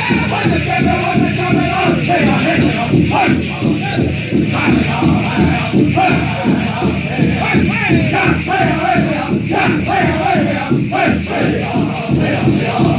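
A powwow drum group singing high vocables over a steady, even drumbeat on the big drum, with the metal cones of jingle dresses shaking along.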